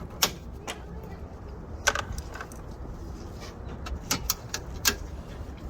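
Plastic push clips being pried out of car trim with a tool: a handful of sharp clicks and taps, spread unevenly, over a low steady hum.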